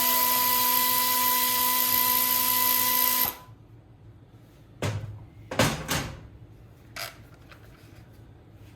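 Electric drill-driver spinning up and running steadily for about three seconds with a high whine, backing out the bolts of the flywheel fan cover on a GY6 150cc engine, then stopping suddenly. After it come a few separate knocks and clatters of metal parts being handled.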